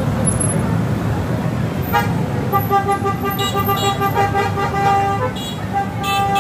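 A vehicle horn held steadily for about three seconds, starting about two seconds in, then sounded again near the end, over continuous street traffic noise and crowd voices.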